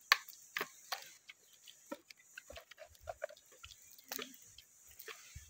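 Spoons and forks clicking and scraping against plates during a meal, a string of sharp separate clicks with the sharpest just at the start. A few short, low vocal sounds come in the middle and about four seconds in.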